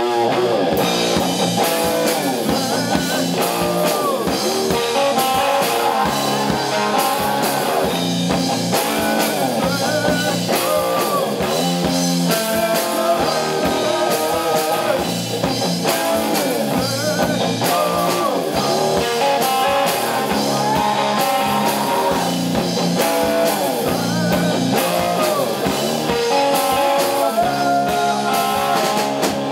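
Live instrumental rock from a small band: an electric guitar played through an effects pedalboard, with many bent and sliding notes, over a drum kit keeping a steady beat.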